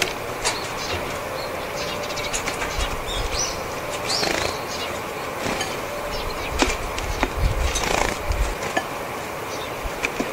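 Japanese tits (Parus minor) coming and going close by: the flutter of their wings as they land and take off, with short, scattered call notes.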